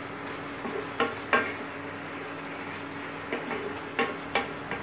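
A spatula stirring chicken achari in a cooking pan, knocking and scraping against the pan about six times, several knocks in quick pairs, over a steady sizzle of the simmering curry.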